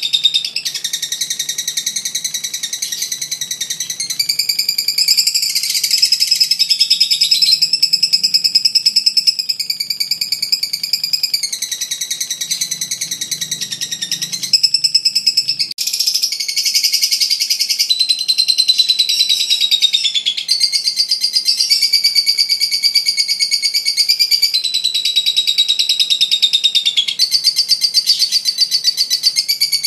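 Masked lovebird in its violet colour form singing its long 'ngekek' chatter: a long, nearly unbroken run of rapid high-pitched chattering that pauses only briefly about halfway through.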